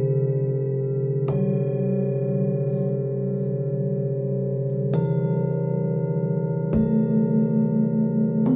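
Metal singing bowls struck one after another, four strikes a second or two apart, each adding a new pitch to a long, wavering ring of overlapping tones.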